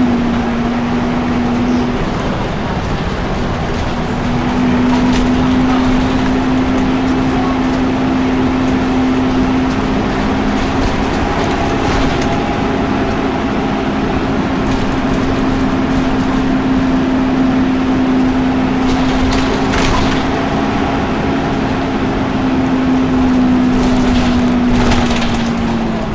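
Volvo B10BLE bus's engine cooling fan running with a loud, steady whirring drone and a rush of air over the engine. The pitch sags slightly near the start and again near the end.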